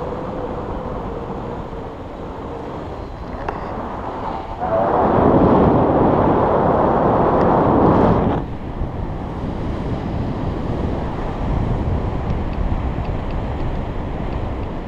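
Airflow rushing over an action camera's microphone in flight under a tandem paraglider: a steady low rush that grows much louder for about three seconds, from about five seconds in.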